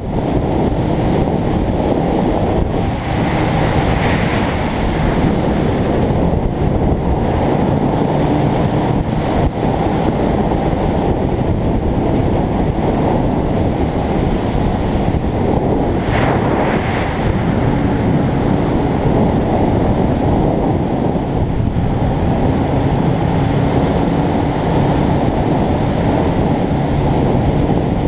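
Loud, steady wind rush on the microphone of a camera riding on a moving motorcycle, with the engine's drone faintly underneath.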